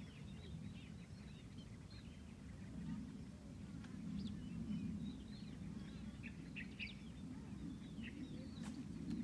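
Scattered short bird chirps, several a second at times, over a steady low rumble of outdoor background noise.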